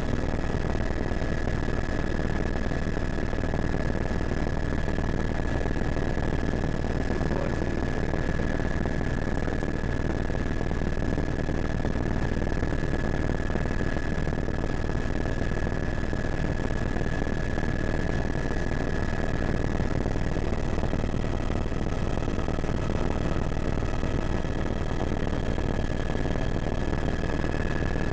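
Helicopter running steadily: a constant high whine over a dense low drone, without change.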